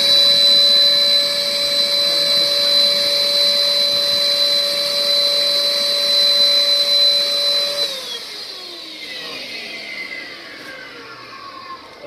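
Vacuum cleaner running steadily with a high whine as the hose sucks spiders off the washer. It is switched off about eight seconds in, and its pitch falls as the motor winds down.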